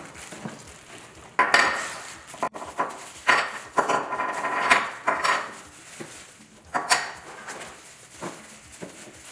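Clear plastic bags crinkling in several short bursts as the pasta maker's white plastic attachments are pulled out of their wrapping, with light knocks as the parts are set down on the counter.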